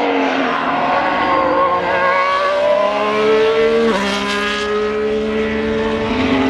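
Ferrari SF-23 Formula 1 car's 1.6-litre turbocharged V6 engine on track, revs dipping and then climbing as it accelerates, with a sharp upshift about four seconds in before pulling on.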